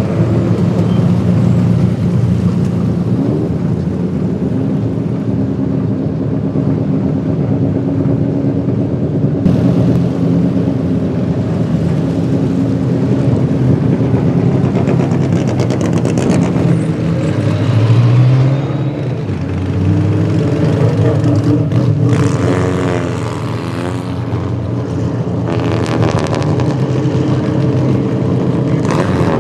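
Vintage race car engines running at idle, with a brief rise in revs about eighteen seconds in.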